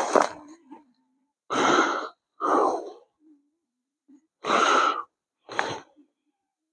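A man's breathing close to the microphone: about five separate breaths, each roughly half a second long, with short silences between them.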